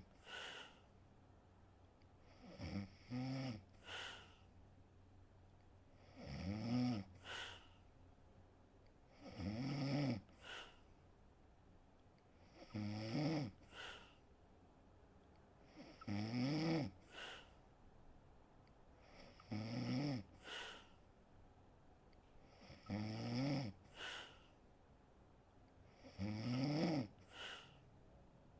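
A woman snoring in her sleep with a steady rhythm: about every three and a half seconds a snore on the breath in, rising in pitch, followed by a short breath out.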